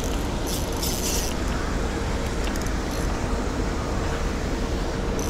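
Steady churning noise of a pond's paddlewheel aerator with a faint motor hum. A few light clicks come about half a second to a second in and again near the end.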